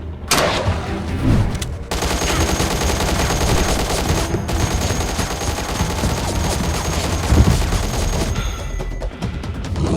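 Rapid, continuous gunfire like a machine gun, with background music underneath.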